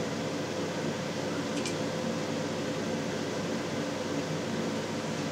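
Steady mechanical hum, like a fan or air conditioner running, with a faint tick about one and a half seconds in.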